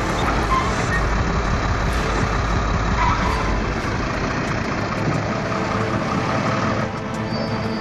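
Heavy diesel vehicle engine running under load, a steady loud rumble with mechanical noise, easing off slightly about seven seconds in.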